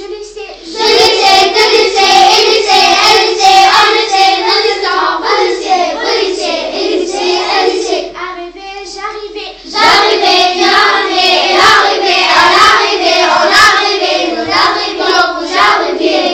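Children's voices singing the French imparfait verb conjugations in a sing-song chant, with hand claps on the beat. The chant breaks off briefly about eight seconds in and then starts again.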